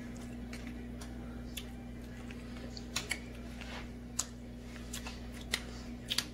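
A metal utensil clicking and scraping against a dinner plate while eating, a handful of short sharp clinks spaced irregularly, over a steady low hum.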